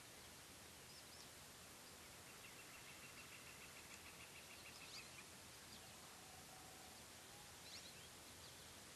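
Near silence: faint outdoor hiss with a few faint, short bird chirps, and a faint rapid trill from about two seconds in to about five seconds in.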